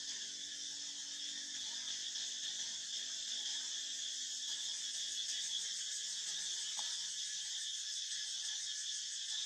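A steady, high-pitched chorus of insects buzzing in the forest.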